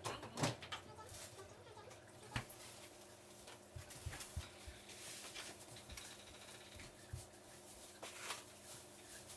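Scattered light knocks and clatter of kitchen food prep, as dishes, a tray and food are handled and set down on a table, over a faint steady hum.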